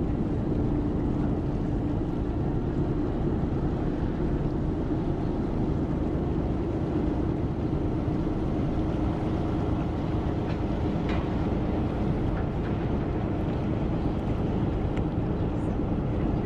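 Tour boat's engine running steadily: a constant low rumble with a held hum.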